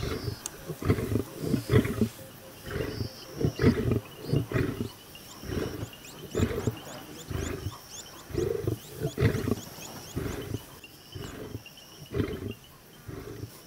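Lions growling over a kill in short, deep rumbles about twice a second: the feeding male's warning that keeps the waiting lionesses and cubs off the carcass.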